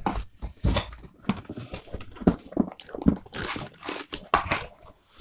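Packaging rustling and scraping as a printer is pulled out of its box: plastic bag crinkling, polystyrene foam end caps rubbing against cardboard, with a few knocks.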